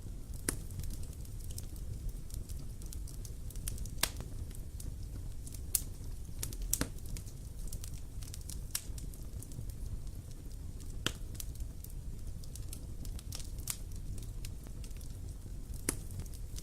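Wood fire burning with a low steady rumble and irregular sharp crackles and pops.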